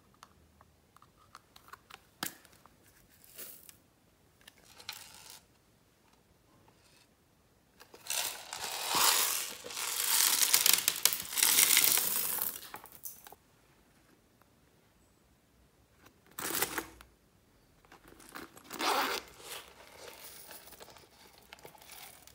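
Small plastic beads and glitter sequins poured from plastic containers into a glass tray, a dense rustling patter that lasts several seconds in the middle, with two shorter pours later and a few light clicks of plastic being handled early on.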